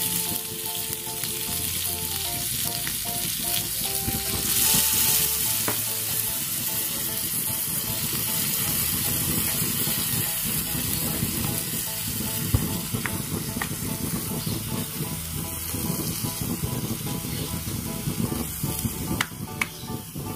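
Chicken hearts and chili paste sizzling steadily as they fry in a miniature wok, with a small metal spatula stirring and scraping the pan and a few sharp taps near the end. Soft background music plays underneath.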